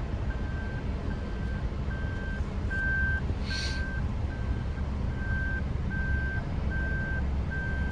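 Car's reverse-gear warning beeper sounding one steady high beep a little more than once a second while the car backs into a parking space, over the low rumble of the idling engine. A short hiss about three and a half seconds in.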